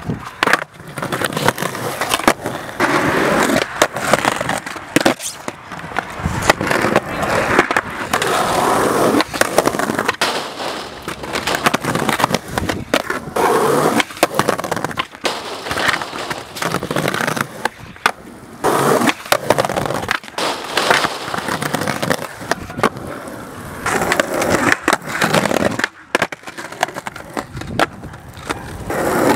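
Skateboards rolling on asphalt and concrete, with repeated sharp pops, clacks and landing slaps of the boards as flip tricks are tried.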